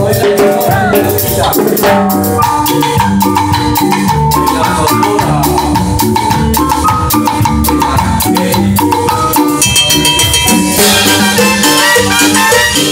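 Live cumbia band playing loud, with drum kit and percussion keeping a steady beat under the melodic parts; brighter, higher-pitched parts come in about ten seconds in.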